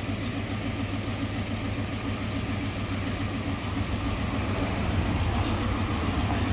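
Truck engine idling steadily, a little louder from about four seconds in.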